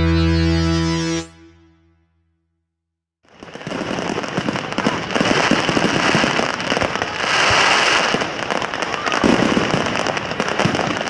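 A held chord on distorted electric guitar ends the song and cuts off about a second in; after a short silence, fireworks crackle densely with many fine pops, louder at moments.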